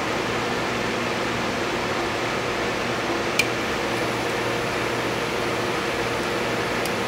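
Steady fan-like hiss and hum, with one sharp metallic click about halfway through and a faint tick near the end, from a lock pick working the pin stack of a Scorpion CX5 mortise cylinder.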